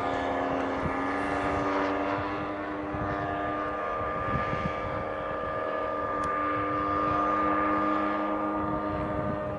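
Radio-controlled Extra 260 aerobatic model plane's ZDZ 180 two-stroke petrol engine and propeller running steadily in flight, its pitch shifting a little partway through.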